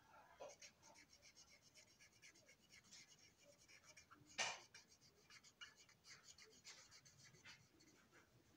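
Faint, quick strokes of a felt-tip marker rubbing over the plastic panels of a boxcar, with one louder tap about four and a half seconds in.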